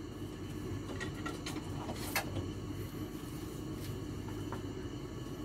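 Steady low hum of kitchen appliances, with a few light clicks and knocks scattered through it.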